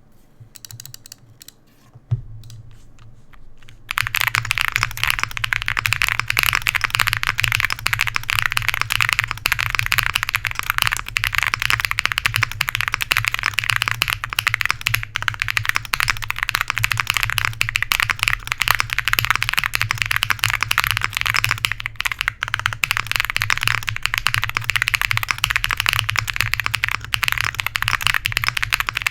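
Mechanical keyboard with YOK Holy Panda tactile switches on an FR4 plate and GMK-style keycaps: a few scattered keystrokes, then from about four seconds in a fast, continuous stream of typing clacks. A steady low hum runs underneath.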